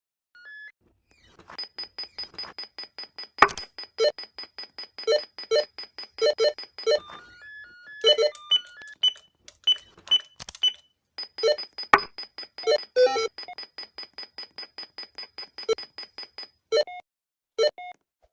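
Beward door intercom panel sounding its electronic signal tones: two long runs of rapid, evenly repeated beeps, about five a second, with a short melody of single tones between them. A sharp click comes a few seconds into each run.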